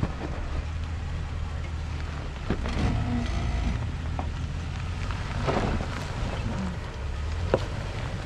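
Pickup truck with a camper on the back crawling down a rocky dirt road: a steady low engine drone with a handful of sharp knocks scattered through it.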